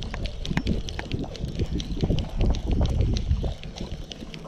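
Wind buffeting the microphone, with a spinning reel being cranked to reel in a hooked fish and quick, light ticks through it.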